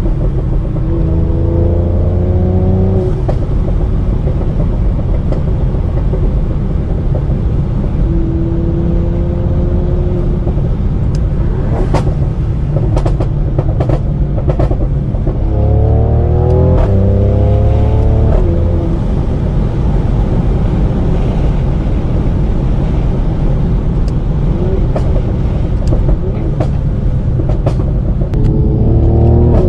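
Tuned Mercedes-AMG C43's twin-turbo V6 and exhaust pulling hard several times, its pitch climbing through the revs with a gear change mid-pull. Between pulls, bursts of sharp exhaust crackles and pops come off the throttle.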